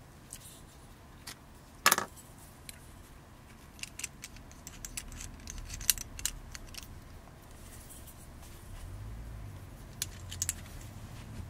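Small sharp clicks and light taps of a plastic-and-metal compass cutter being handled and adjusted. The loudest click comes about two seconds in, followed by a scatter of smaller clicks.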